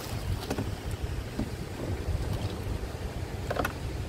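Wind buffeting the microphone as a low, uneven rumble, with a couple of brief clicks about half a second in and again near the end.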